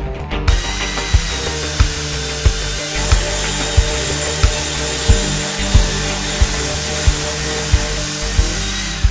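A Bosch GSS 2300 orbital sander runs steadily, starting about half a second in and stopping just before the end. Background music with a steady beat plays underneath.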